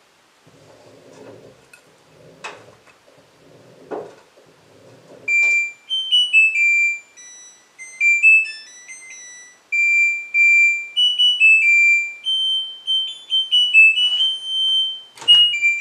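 LG front-loading washing machine's drum turning slowly, with the laundry tumbling softly and knocking twice, in its final anti-crease tumble. About five seconds in, the machine plays its end-of-cycle melody, a tune of loud electronic beeps in stepped notes lasting about ten seconds, followed by a click near the end.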